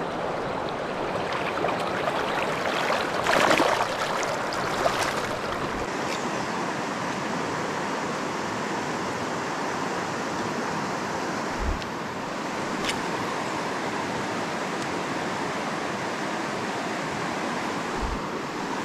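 Rushing river water: a steady, even wash of current noise, with a few louder brief noises about three to five seconds in.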